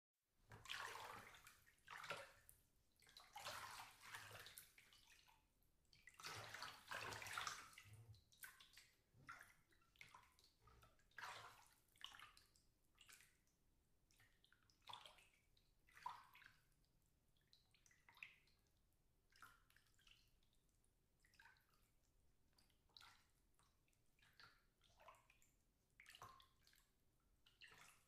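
Water being stirred and sloshed about in a bathtub: several longer swishes in the first eight seconds, then smaller, sparser splashes and drips.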